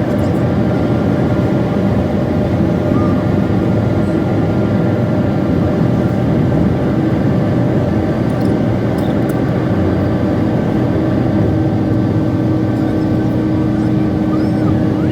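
Steady drone of a moving vehicle, even and unbroken, heaviest in the low range with a faint steady hum.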